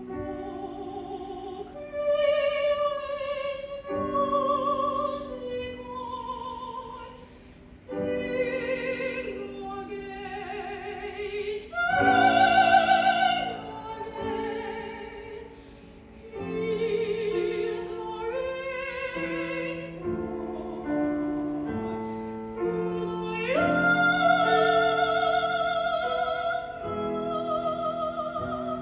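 A classical soprano singing an art song with vibrato, accompanied by piano. She sings in phrases with short breaks between them, and her loudest high notes come about twelve seconds in and again near the end.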